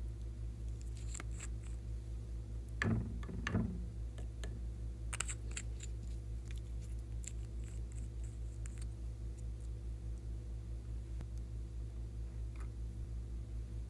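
Small egg-shaped plastic makeup containers being handled and twisted open: two short rasping twists about three seconds in, then scattered light plastic clicks and taps, over a steady low hum.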